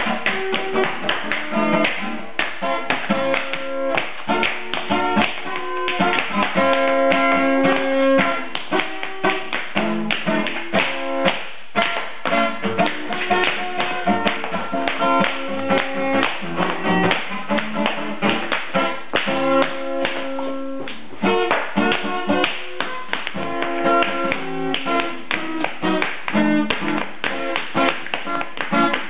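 Tap shoes clicking on a hardwood floor in quick, irregular runs as a child tap-dances, over music.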